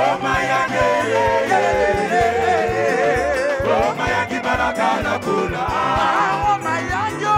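Live gospel music: a group of male singers on microphones, lead and harmony voices with wide vibrato, over a band with stepping bass notes.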